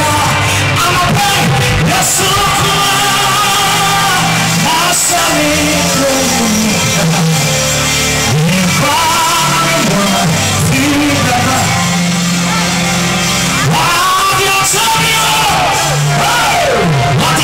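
Live gospel worship music: a man's amplified singing voice, with long swooping notes, over a band with drums.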